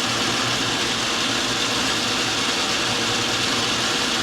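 Metal lathe running steadily under the constant hiss of heavy rain on a metal roof.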